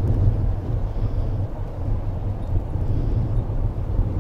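Engine of a large Dewoitine D.26 scale model airplane idling steadily as the model taxis, with wind buffeting the microphone.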